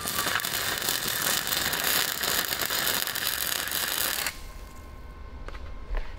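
Wire-feed welder arc crackling and sizzling steadily while tack-welding a steel shock tab onto the swing arm, cutting off abruptly a little over four seconds in. A couple of faint clicks follow near the end.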